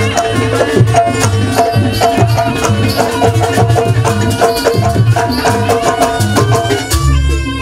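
Javanese jaranan accompaniment music: hand drums beat a fast, steady rhythm over held tones. A deep low note comes in near the end.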